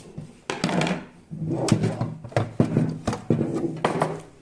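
Irregular knocks, scrapes and clattering as the back panel and sheet-metal casing of a blower room heater are pulled apart and handled.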